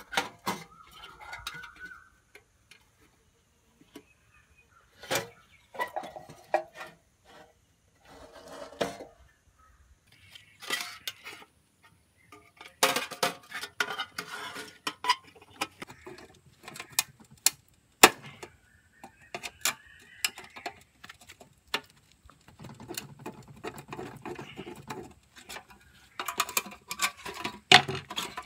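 A rusty sheet-metal money box is handled and pried at with pliers, giving irregular clinks, taps and scraping of thin metal.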